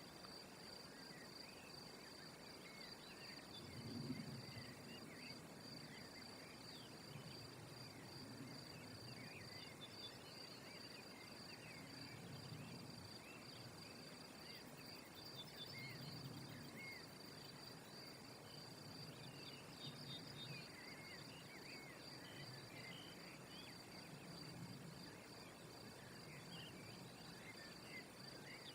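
Faint ambience: a steady high-pitched insect trill, typical of crickets, with scattered faint chirps and soft low rumbles, the loudest about four seconds in.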